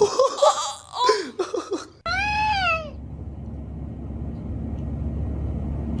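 An animal's drawn-out call, rising then falling in pitch, about two seconds in, after a jumble of short sounds; a steady hiss follows, and a second similar call starts at the very end.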